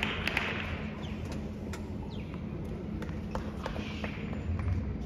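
Outdoor tennis-court ambience between points: a steady low rumble and faint hiss, with scattered sharp taps at irregular moments.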